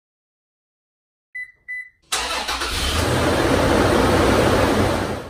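Two short high beeps, then a car engine cuts in loudly about two seconds in. It runs for about three seconds and stops abruptly.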